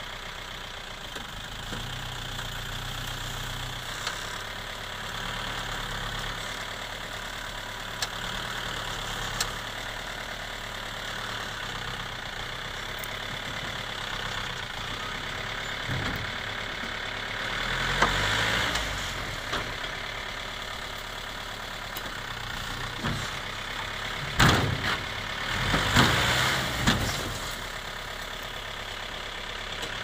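Diesel tipper truck's engine running at a steady idle as it tips soil from its raised bed, swelling louder a little past the middle and again near the end. A few sharp knocks stand out, the loudest near the end.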